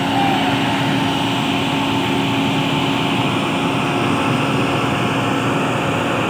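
W 100H milling machine running, an even mechanical noise with a steady hum.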